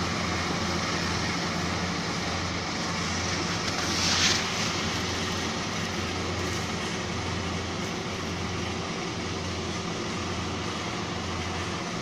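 Small GY4LZ-1.0 wheat combine harvester running steadily while cutting, heard from far across the field, with a brief louder hiss about four seconds in.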